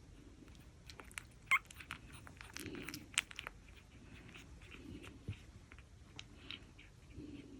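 Jack Russell Pomeranian puppies chewing and mouthing, with scattered small clicks and one short high squeak about one and a half seconds in.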